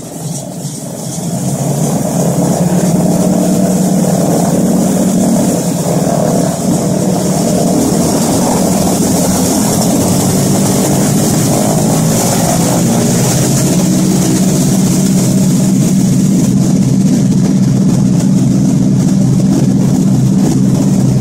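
Ford Trimotor's radial engines and propellers running, heard from inside the cabin. The drone gets louder about two seconds in and then holds steady.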